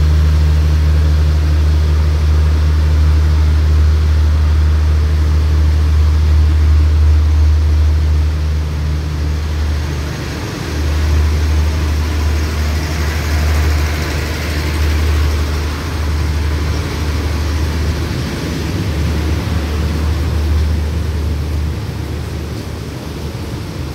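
Diesel passenger train at a platform: a steady low engine hum while it stands, then the train pulls out and its coaches roll past with a rising rumble and hiss about halfway through, the hum turning uneven as the train moves away.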